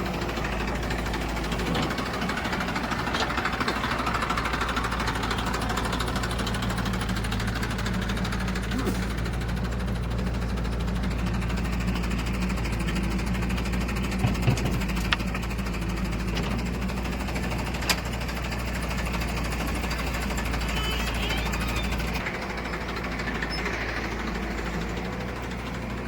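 Heavy diesel engine running steadily, with a few sharp knocks a little past halfway.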